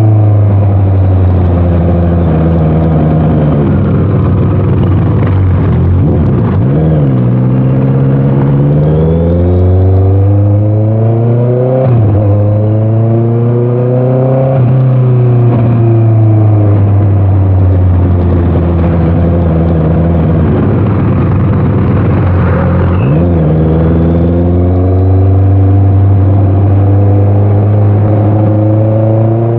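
Honda CBR650R's inline-four engine through an Orion aftermarket exhaust, running hard under way. The engine pitch climbs and falls again and again, with several quick shifts between gears.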